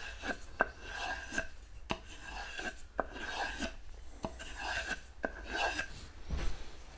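Freshly sharpened knife cutting into a small wooden board in short repeated strokes, about two a second: a sharpness test on wood.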